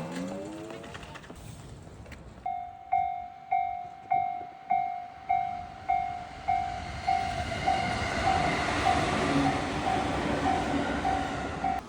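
A Japanese level crossing's electronic warning bell starts about two and a half seconds in, a steady ding repeating about every 0.6 s. From midway a train passes through the crossing, its rushing rumble growing louder under the bell.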